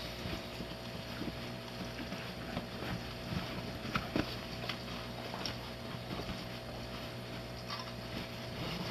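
Steady low hum with background hiss, broken by a few faint short clicks and taps around the middle.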